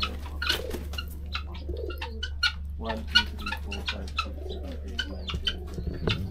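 A flock of doves cooing in their coop, mixed with many short, high chirps and peeps from the birds.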